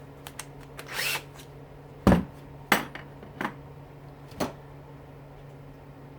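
Tools and metal parts being handled and set down on a workbench: a short rattle, then a heavy knock about two seconds in, a sharp clack just after and a few lighter knocks, over a steady low hum.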